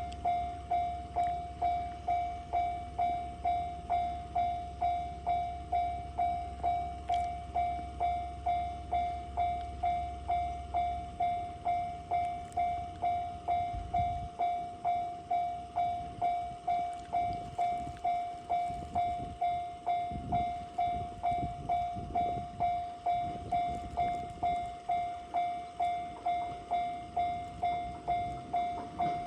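Japanese level crossing warning bell ringing in an even, repeating single-tone strike, just under two strokes a second, signalling that a train is approaching. A low rumbling joins in about halfway through.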